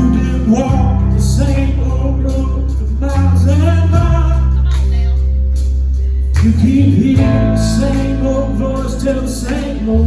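Gospel song with bass, guitar and a singing voice; the bass chords change about every three seconds.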